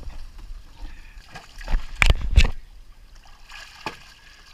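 German shepherd plunging into pool water after a sunken ball: splashing throughout, with two loud splashes about two seconds in, then quieter water sounds as it surfaces.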